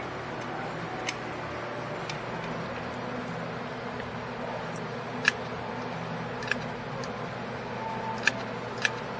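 About five sharp metallic clicks, irregularly spaced, as a parking-brake cable end and its coiled spring are worked onto the lever of a new rear drum brake shoe by hand. Under them runs a steady background hiss.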